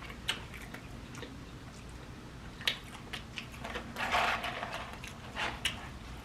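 A person chewing food close to the microphone, with scattered soft clicks and mouth noises and a short louder rustle about four seconds in.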